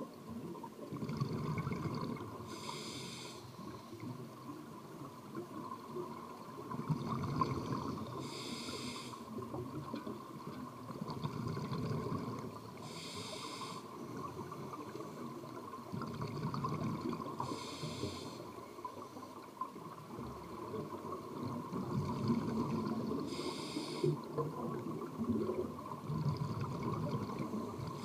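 Scuba diver's regulator breathing underwater. A short hiss of inhalation comes every four to six seconds, about six times, and between them a longer low bubbling of exhaled air.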